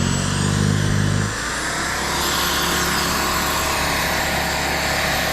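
Corded electric snow blower running, its low motor hum changing abruptly about a second in and then carrying on under a steady rushing noise.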